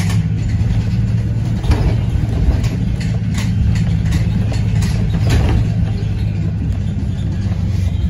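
Blue Bird Vision school bus under way, heard from inside the passenger cabin: a steady low engine drone, with short knocks and rattles from the body now and then.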